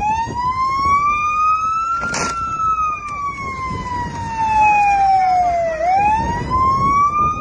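Police car siren wailing, its pitch rising slowly, falling over about four seconds, then rising again. A short burst of noise cuts across it about two seconds in.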